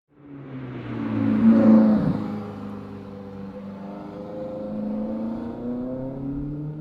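Lotus Elise Sport 220's supercharged four-cylinder engine under acceleration. It fades in and grows loud with rising pitch to a peak about a second and a half in, drops sharply in pitch just after two seconds, then its pitch climbs slowly again as it pulls on.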